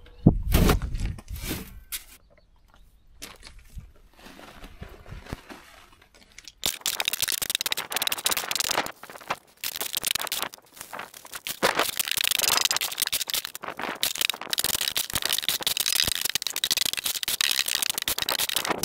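A few knocks and clicks at a door and its latch in the first couple of seconds, then, from about a third of the way in, a shovel scraping and turning sand-and-cement mortar in a steel wheelbarrow: a continuous gritty rasp of the blade against the metal pan.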